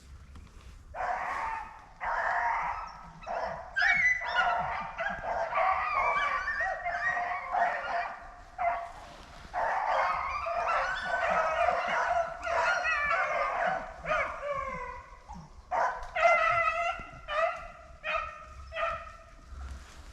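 A pack of rabbit hounds baying together, many overlapping voices, as they run a rabbit on its scent trail. Near the end it thins to a few separate bawls.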